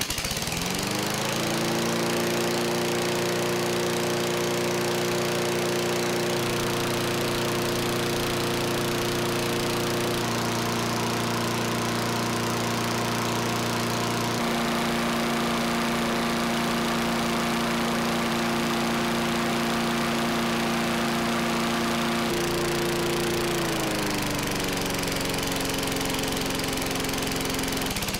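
Small single-cylinder four-stroke lawn mower engine, running on WD-40 in place of motor oil with its blower cover off. It starts and quickly comes up to speed, then runs steadily at high speed. Near the end it drops to a lower speed.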